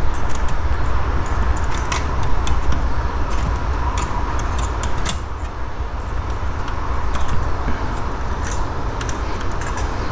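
Small scattered metal and plastic clicks and ticks from the parts of an opened in-dash 6-disc CD changer mechanism being handled, as the disc platters are pushed back into place, over a steady low hum.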